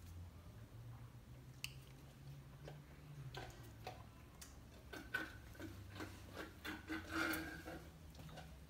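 Samoyed puppy licking and nibbling at a watermelon wedge on a tile floor: faint, scattered wet smacks and clicks, with one sharp click about a second and a half in and a denser run of them from about five to seven and a half seconds in.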